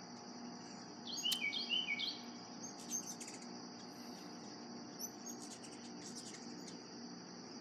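A bird calling a quick run of five or so short notes about a second in, over a steady high chirring of insects and the low steady hum of an air conditioner.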